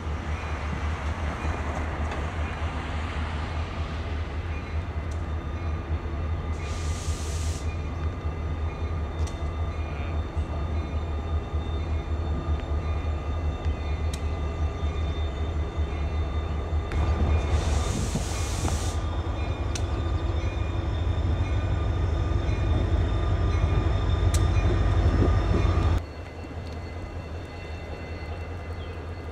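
EMD SD40-2 diesel-electric locomotive moving slowly at close range, engine running with a steady whine on top; two short hisses come through, the second a little past halfway. Near the end the sound drops suddenly to a quieter, more distant locomotive.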